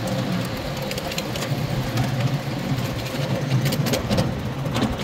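Coal-fired miniature steam train running along its track: a steady mechanical rumble, with a few sharp clicks near the end.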